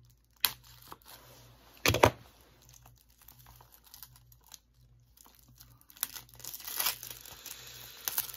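Packaging being handled, crinkling and tearing, with a click about half a second in and a sharper knock about two seconds in; the crinkling gets busier from about six seconds.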